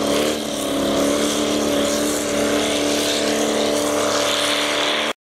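Off-road rig's engine running hard at steady revs as it drives through deep snow, stopping abruptly near the end.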